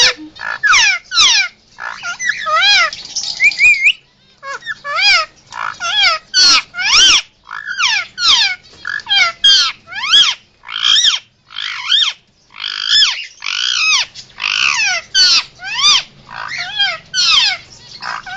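Indian ringneck parakeet giving a rapid series of loud, shrill calls, each a short up-and-down arched screech, about two or three a second with a brief pause about four seconds in.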